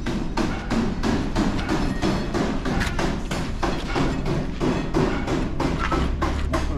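Background music with a fast, steady percussive beat over a bass line.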